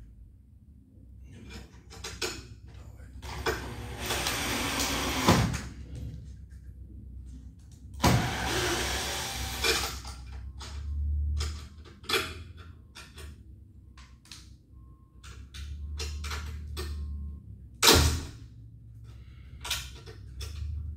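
Cordless drill-driver driving self-tapping screws through a stretch-ceiling profile into the wooden battens above, in several short runs with clicks and handling knocks between them, and a sharp knock near the end.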